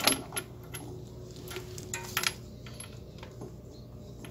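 Sharp metallic clicks and clinks as a drum-brake wheel cylinder is pushed by hand into place against the brake shoes and their pushrods on the backing plate. The loudest click comes right at the start and a short cluster of clicks about two seconds in, with lighter handling noise in between.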